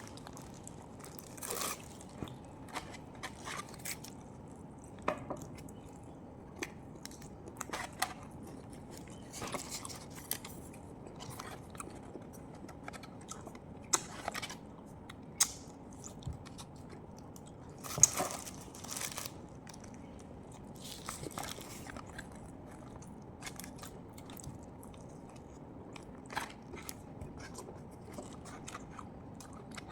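A person eating close to the microphone: irregular chewing, biting and crunching sounds with scattered clicks of utensils or food, the loudest about eighteen seconds in.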